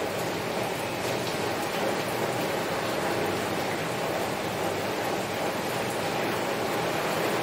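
Heavy rain falling steadily on a window, an even, unbroken hiss with no single drops or thunder standing out.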